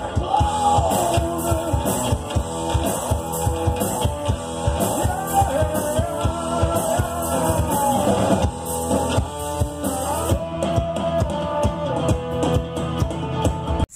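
Live rock band playing: a singer over electric guitars and a drum kit keeping a steady beat, heard from the crowd in front of the stage.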